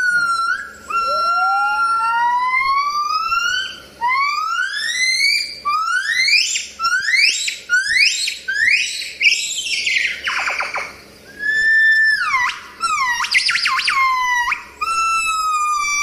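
Crested gibbons singing a duet of loud whooping calls. A run of rising whoops comes faster and climbs higher, breaks into a rapid trill about ten seconds in, and is followed by quick notes that dip and swoop back up.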